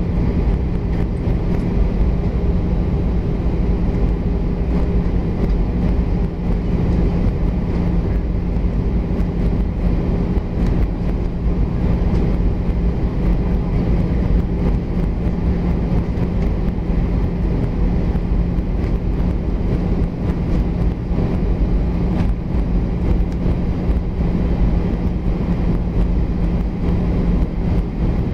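Steady cabin noise inside an Airbus A320 on approach: the engines' even drone, with a constant low hum over rushing airflow.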